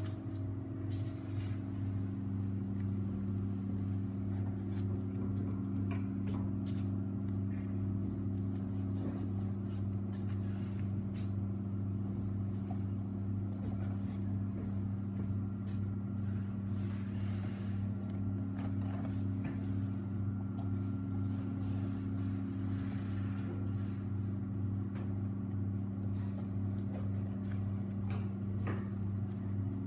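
Steady low machinery hum of a meat-processing room, with faint scrapes and ticks of a knife cutting the meat off reindeer rib bones.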